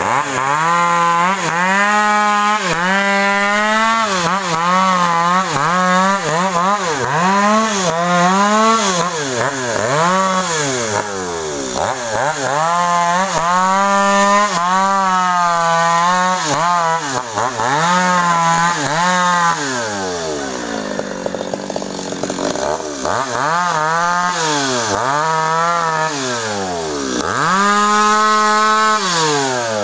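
Stihl two-stroke chainsaw cutting sengon wood. The engine speed repeatedly rises to a high steady pitch and drops away again, with a lower, quieter spell about two-thirds of the way through.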